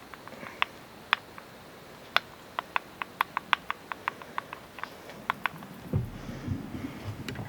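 Irregular sharp light taps and clicks from loading a .50 calibre muzzleloading pistol by hand, several in quick succession in the middle. About six seconds in come low handling thuds and rustling.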